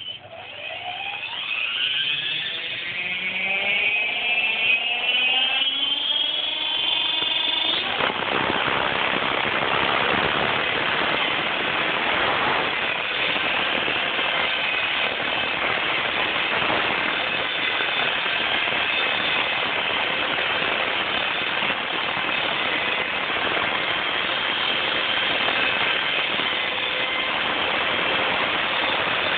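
Radio-controlled helicopter spooling up: its motor whine rises steadily in pitch for about eight seconds as the rotor comes up to speed. It then switches to a steady, louder whirring of motor and rotor blades while the helicopter hovers low over the ground.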